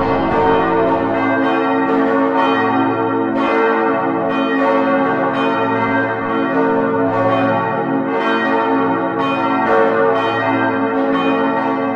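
Church bells pealing: several bells struck in irregular succession, their tones ringing on and overlapping.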